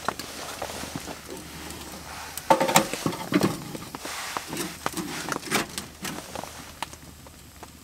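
Clicks and knocks around a steel wood-burning tent stove. A short metallic clank rings about two and a half seconds in, over the crackle of the burning wood.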